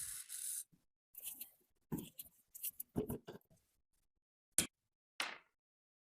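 Hand work on sewing-machine parts: a short hiss at the start, then scattered clicks, scrapes and light knocks, with one sharp click and a brief swish near the end.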